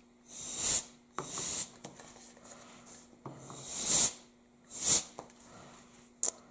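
Canned air (a compressed-air duster) blown through a thin straw nozzle in short hissing blasts, about five of them, each under a second, with pauses between.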